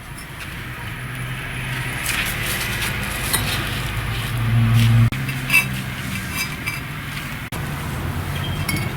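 Light clinks and knocks over a steady low hum that grows louder, with two abrupt breaks about five and seven and a half seconds in.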